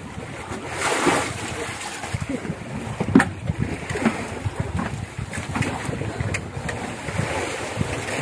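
Wind on the microphone and sea washing around a wooden fishing boat, with scattered sharp knocks and clatter, the loudest just after three seconds in.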